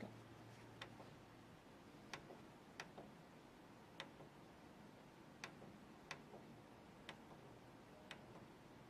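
Faint, sharp clicks of the plastic push buttons on an Epson Stylus Pro 9890 plotter's control panel being pressed, about eight presses at uneven intervals.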